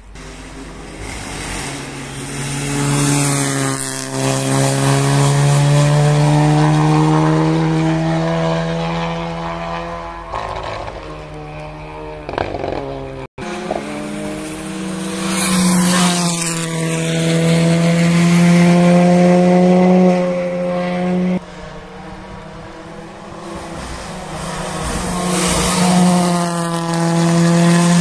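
Rally cars at high revs passing one after another, each engine note swelling as the car comes close and fading as it goes away. The sound breaks off abruptly twice, about 13 and 21 seconds in, between three separate passes.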